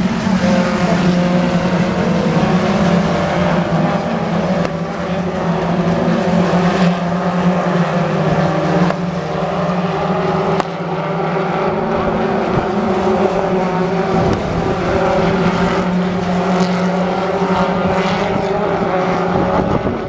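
A pack of British Touring Car Championship cars, turbocharged 2.0-litre four-cylinder racing engines, driving through a corner one after another, their engine notes overlapping. A couple of short sharp cracks come around the middle and near the end.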